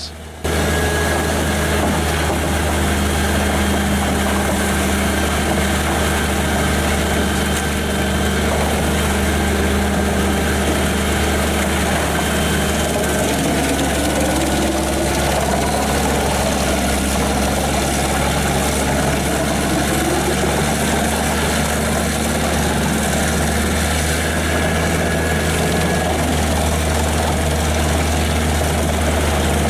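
Heavy diesel engine of a large industrial wood chipper running at a steady speed, a constant deep hum that sets in abruptly about half a second in.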